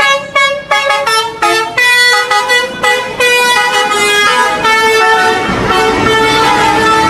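Bus's basuri telolet multi-tone air horn playing a quick melody of short notes that step up and down, with some notes held longer near the end. A low rumble comes in about five and a half seconds in.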